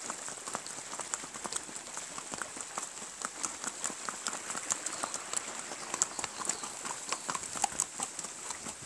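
Horse's hooves clip-clopping along a rough mountain trail, a steady run of irregular knocks several times a second, heard from on the horse's back.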